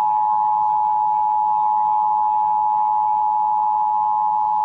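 Emergency Alert System attention signal: a steady, loud two-tone alarm, held without a break, that cuts off suddenly near the end. It is the tone that heads a broadcast weather warning.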